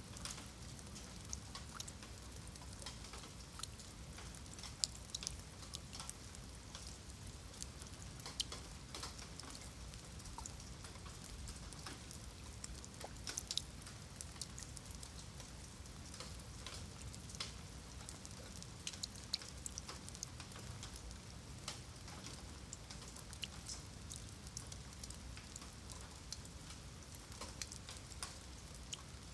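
Rain falling on wet stone paving and into shallow puddles: a steady patter with many scattered, sharp individual drop splashes.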